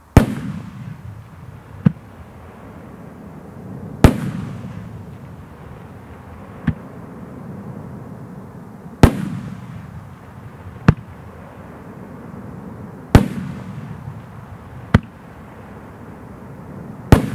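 LDC706 25-shot 3-inch firework cake firing one shell about every four seconds. Each shell's sharp launch crack is followed about two seconds later by a louder aerial burst with a long echoing rumble. There are five bursts and four launches in all.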